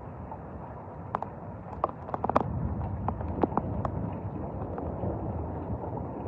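Thunderstorm rain and wind making a steady rush, with a scatter of sharp taps and cracks from about one to four seconds in.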